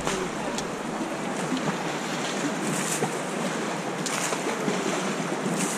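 Whitewater river rapids rushing, a steady, even wash of noise.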